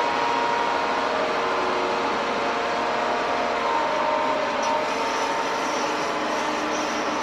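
Diesel engine of a SINOMACH 957 wheel loader running steadily under way as the machine drives and turns, a constant engine drone with its pitch shifting slightly partway through.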